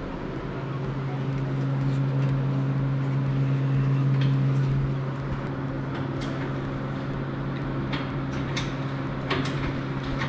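A steady low hum, with a few light clicks and knocks from the tube-frame car's fabricated steering linkage and universal joints as the steering is turned by hand.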